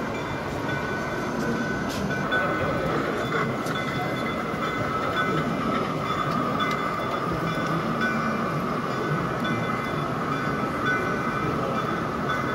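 Large-scale model Shay geared steam locomotive running slowly along the track, a steady train-like running sound over the constant noise of a busy exhibition hall.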